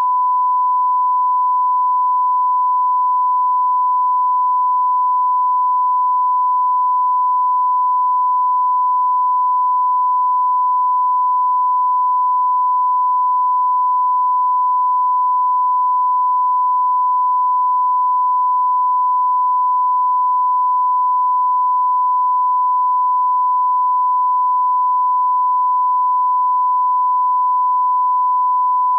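Steady 1 kHz line-up tone, a single pure pitch held at constant level. It is the reference tone laid with colour bars at the head of a broadcast tape for setting audio levels.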